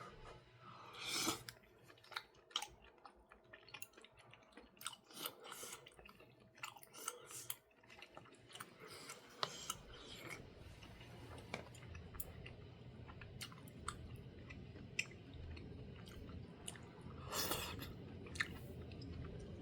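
A person chewing jjimdak (Korean braised chicken) close to the microphone, with many small clicks and mouth noises. There are two louder short noises, one about a second in and one near the end.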